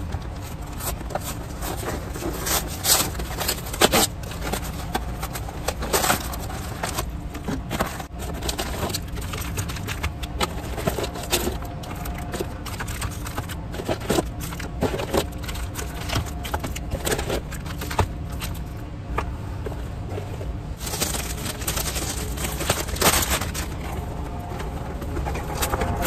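Handling of a cardboard Capri Sun box and its foil juice pouches: scraping, crinkling and sharp taps at irregular moments. A steady low rumble of construction outside runs underneath.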